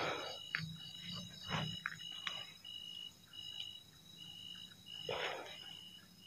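Faint night chorus of calling creatures: a short high chirp repeated about twice a second over steady high-pitched insect drones. A few short rushes of noise break in, the loudest at the start and about five seconds in.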